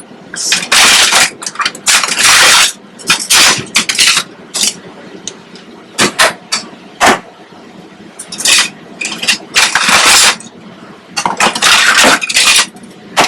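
Metal spoons clattering and clinking in repeated bursts as they are gathered and dropped, with a few sharp single clinks.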